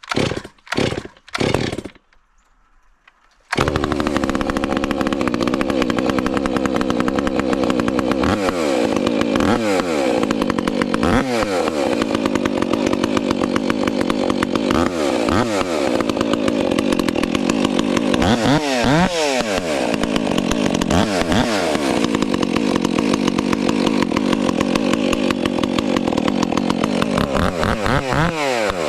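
Stihl MS400C two-stroke chainsaw with a straight-shot muffler being pull-started: a few quick bursts in the first two seconds, then it catches about three and a half seconds in and runs loud. Its note dips and rises briefly several times while it runs.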